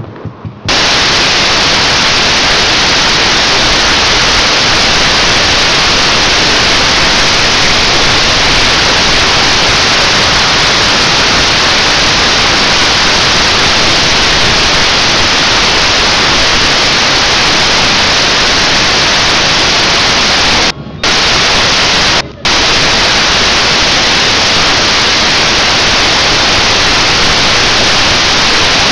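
Loud, steady static-like hiss that starts abruptly and drops out briefly twice about two-thirds of the way through.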